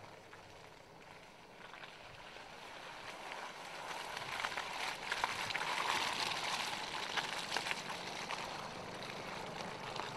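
Tyres of a Mercedes-Benz GLK rolling slowly over loose dry dirt and stones, a crunching full of small cracks and pops. It grows louder as the wheel passes close, loudest about halfway through, then eases off a little.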